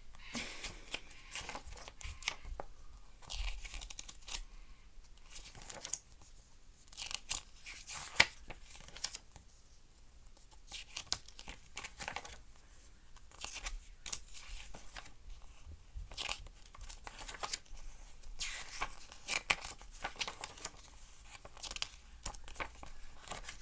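A paper CD booklet being leafed through and handled close to the microphone: repeated short, irregular rustles and crackles of its pages turning.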